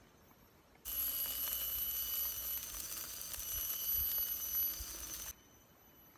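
Chicken and vegetable skewers sizzling and crackling on a charcoal grill, over a steady high ringing of forest insects such as cicadas. The sound cuts in about a second in and stops abruptly about four seconds later.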